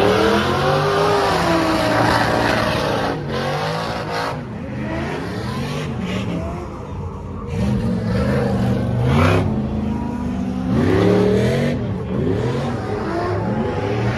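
Off-road vehicle engines revving hard, their pitch climbing and dropping again and again as they accelerate and let off.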